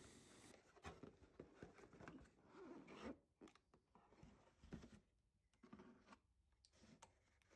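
Faint, intermittent rustling and scraping of cardboard as a long cardboard box is opened by hand and its flaps are folded back.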